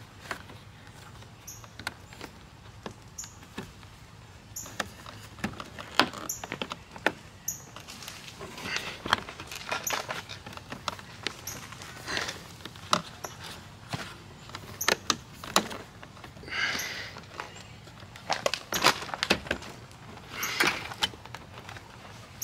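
Scattered clicks, taps and light knocks of a plastic fog-light trim bezel being pressed by hand into a car's front bumper as it is seated, with a few short scraping rubs of hand on plastic from about eight seconds in.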